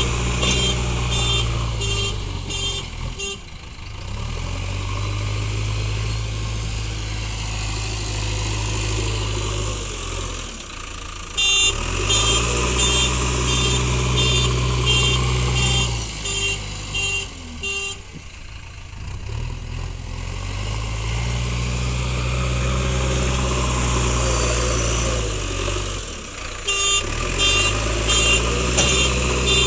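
JCB backhoe loader's diesel engine working under load, its revs dropping and picking up again about every seven or eight seconds as it pushes soil. In three spells, at the start, in the middle and near the end, the machine's reversing alarm beeps about twice a second.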